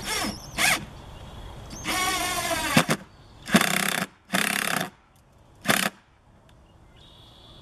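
Cordless drill driving a screw through a plastic rain-gutter piece into the roof fascia: one run of about a second with the motor's pitch sagging as the screw bites, then three short bursts as the screw is seated.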